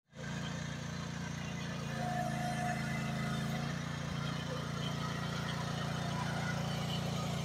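Mini excavator's small engine running steadily as the arm and bucket dig soil, a little louder from about two seconds in.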